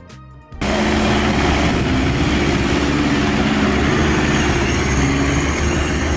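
Off-road 4x4's engine running steadily under load, cutting in suddenly about half a second in.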